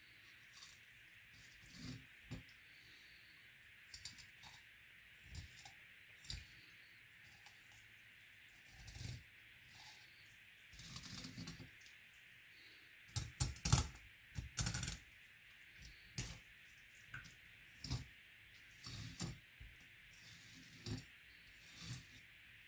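Knife filleting a largescale blackfish on a wooden cutting board: irregular faint clicks and crackles as the blade cuts along the backbone and ribs, loudest in a quick cluster about halfway through, over a steady faint hiss.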